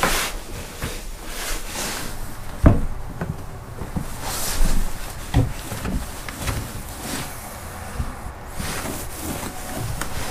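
Knocks, bumps and rubbing on a wooden plank floor as a person crawls on hands and knees wiping it with a cloth, with the rustle of heavy motorcycle trousers. One sharp knock a little under three seconds in is the loudest.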